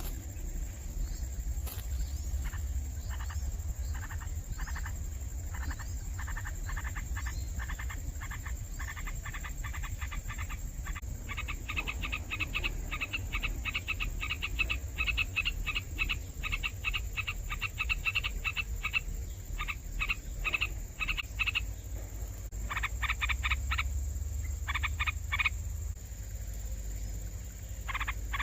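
Baby birds in a nest making short, raspy begging calls. The calls start about one a second, speed up to several a second about halfway through, then stop and come back in a few quick bursts near the end.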